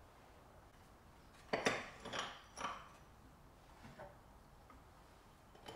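Crockery and plant pots being set down on a wooden shelf: a sharp knock about a second and a half in, then a couple of lighter clinks, a faint tap, and another knock near the end.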